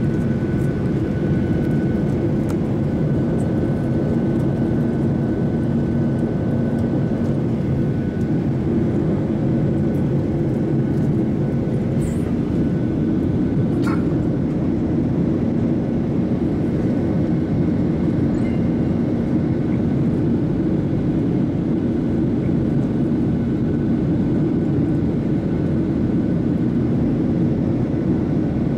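Steady cabin noise of a Boeing 737-800 in flight, its CFM56-7B turbofan engines giving a deep, even rumble with a few faint steady tones in it. A single faint click about halfway through.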